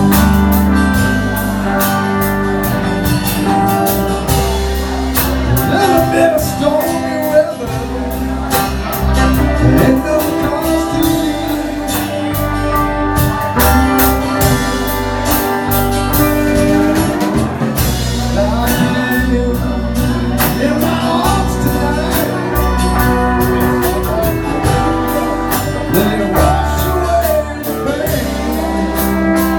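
Live band playing a slow blues-rock song: electric guitar with bent notes over bass and drums, with singing.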